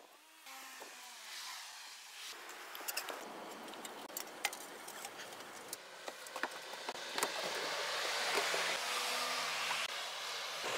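Broad rushing noise that builds over several seconds and is loudest near the end, with scattered sharp clicks and taps as objects are handled.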